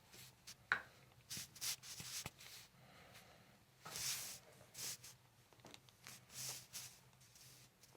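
Quiet rustling and rubbing in short strokes, like hands working over a patient's back and clothing on a treatment table. There is a sharp light tick about a second in, and the longest rustle comes just past halfway.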